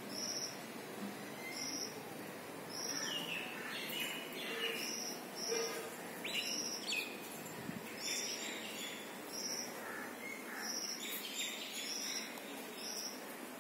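Outdoor birdsong: a short high chirp repeats irregularly about once a second, and a few other bird calls slide down in pitch, over a steady background hiss.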